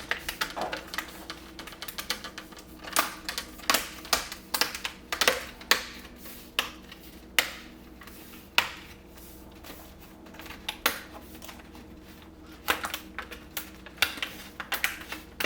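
Plastic screen bezel of an HP EliteBook 740 G1 laptop being pressed into place by hand, its clips snapping in with a string of sharp, irregular clicks.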